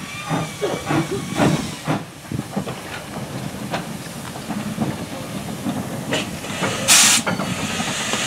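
Andrew Barclay 0-6-0 saddle tank steam locomotive moving slowly, with steam hissing steadily and a run of clanks, about two a second in the first two seconds. A short, loud burst of steam comes about seven seconds in.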